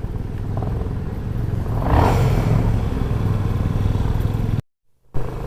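Motorcycle engine running steadily while riding, with road and wind noise and a louder rush about two seconds in. The sound cuts out completely for about half a second near the end.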